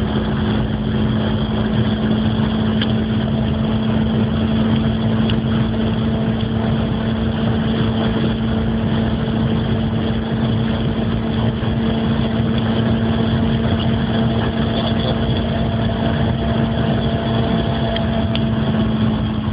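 Suzuki Swift 1.3's engine running at high revs near top speed, about 190–200 km/h, heard from inside the cabin. It is a steady drone, held at one pitch with no gear change, over a constant rush of noise.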